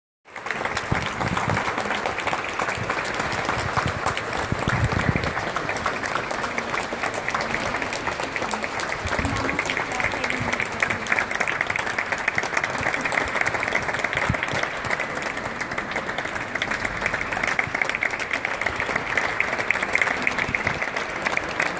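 Audience applauding: a dense, continuous patter of many hands clapping that holds steady throughout.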